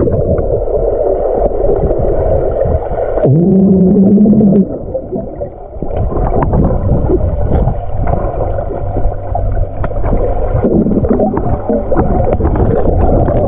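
Muffled underwater sound from a camera submerged in a swimming pool: bubbling and water churning. About three seconds in, a person hums underwater for a little over a second.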